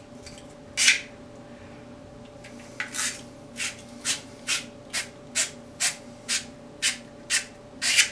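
A hand tool rasping over the cut end of a water pipe in quick back-and-forth strokes, cleaning and deburring it before a push-to-connect fitting goes on. One stroke comes near the start, then after a short pause about a dozen more follow at roughly two a second.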